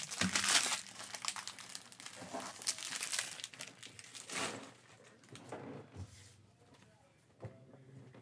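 Crinkly trading-card pack wrapper being handled and crumpled, in several bursts over the first few seconds before it dies away.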